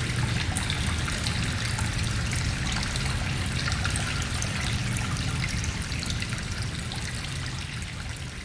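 Stream trickling and splashing in a cave, with reverberation, over a steady low rumble of wind from outside. The whole ambience slowly fades down near the end.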